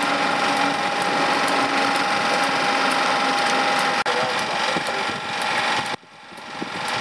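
Class 91 electric locomotive and its train passing, with a steady whine over a quick run of clicks and knocks from wheels on the rails. The sound drops away suddenly about six seconds in and swells back.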